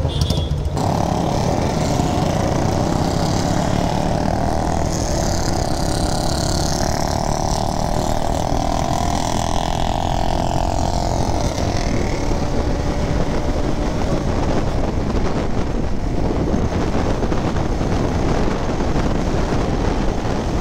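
Motorcycle engine running steadily on the move. A higher drone sits over it for roughly the first half.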